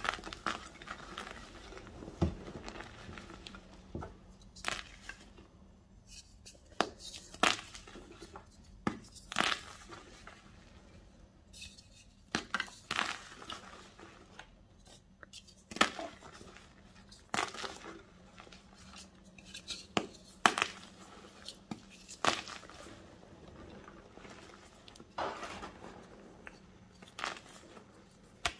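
Blocks of gym chalk crushed and crumbled in bare hands: irregular sharp crunches as pieces snap apart, with soft powdery crumbling between them.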